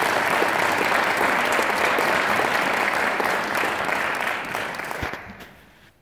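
Audience applauding, then dying away near the end.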